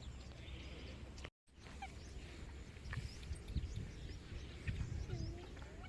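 A flock of waterbirds calling at a wetland, many short chirps and squawks overlapping, over irregular low rumbling. The sound drops out for a moment about a second in.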